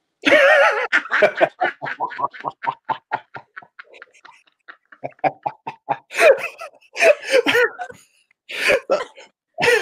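Hearty laughter from a man and a woman over a video call. A loud burst comes first, then a long run of quick 'ha-ha' pulses that fade away, and fresh bursts of laughter come in the second half.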